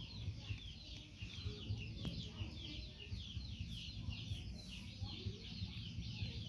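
Chicks peeping without pause: a dense chorus of many short, high, falling peeps overlapping one another, over a low rumble.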